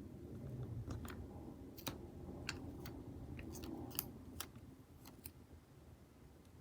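Scissors snipping a paper sticker sheet: a string of short, sharp snips at uneven intervals, fading toward the end.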